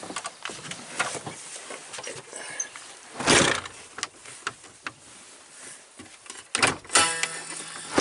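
1997 Freightliner FLD driver's door swung shut with one loud thunk about three seconds in, latching onto its striker, which has just been adjusted outward. Near the end a few sharp clicks and knocks as the latch is released and the door opened, the latch sounding under little stress.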